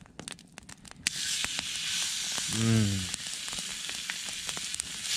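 Marinated beef dropped into a Muurikka pan of hot marinade over a campfire, breaking into a steady sizzle that starts suddenly about a second in. A short hummed "mm" from a person comes midway.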